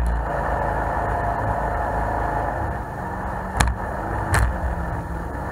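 Jet boat under way, its engine running with water rushing along the hull, heard from on board. Two sharp knocks a little past halfway stand out above the steady noise.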